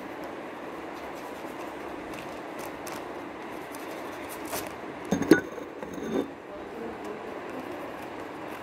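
Plastic bag of blue icing being handled, with faint crinkles and scrapes over steady background noise, and a sharp knock about five seconds in.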